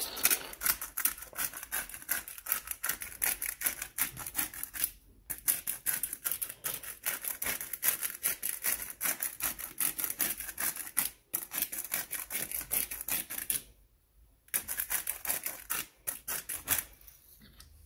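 Black pepper grinder being twisted, a fast run of crunching clicks that stops briefly a few times and then resumes.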